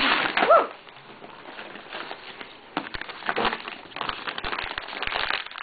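Wrapping paper crinkling and tearing as a present is ripped open, with many small crackles and rustles. A short voice sound rises and falls about half a second in.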